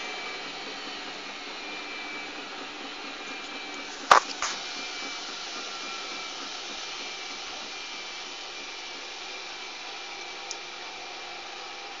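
Miele front-loading washing machine running with a steady motor noise and a faint high whine. A sharp click about four seconds in, with a lighter one just after, is the loudest sound.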